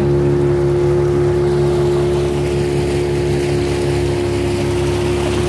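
Motor boat engine running steadily at an even pitch, with water rushing past the hull.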